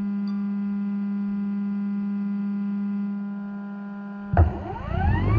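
DJI Air 3 quadcopter's propellers hovering: a steady buzzing hum. About four seconds in it changes suddenly to a louder, rougher whine that rises in pitch.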